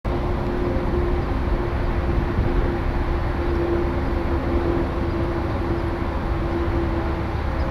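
DJI Phantom 2 quadcopter's motors and propellers running in flight: a steady hum over an even rushing noise.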